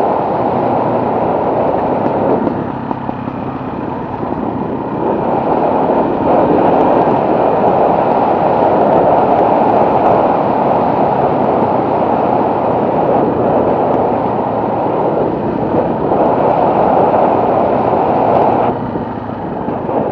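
Off-road motorcycle riding fast along a forest dirt track: engine running under load, mixed with wind rushing over the microphone. It gets quieter for a couple of seconds early on, swells again, and drops once more near the end.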